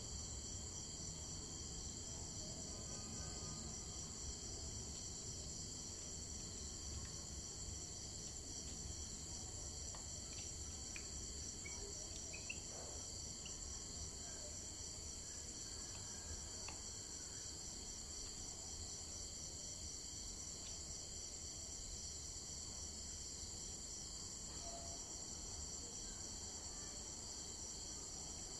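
Steady chorus of insects, a high pulsing trill that does not let up, with a few faint short chirps about halfway through.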